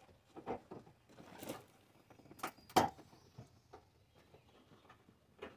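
Hands working the plastic bumper and headlight-area trim at the front of a car: a scatter of clicks, knocks and a short rustle, the sharpest knock about halfway through.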